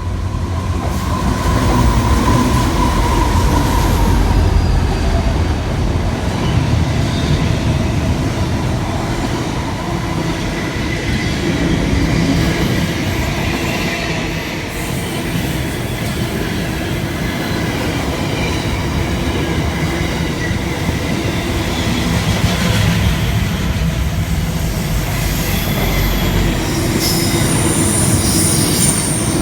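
A train running through the station: steady rumble of steel wheels on the rails, with high thin squealing tones near the end.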